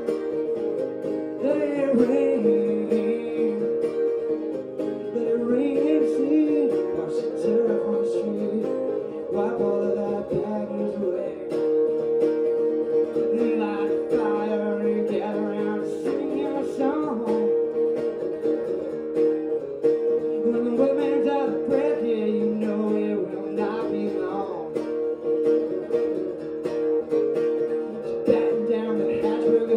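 A man singing to his own strummed acoustic guitar: a solo singer-songwriter performance.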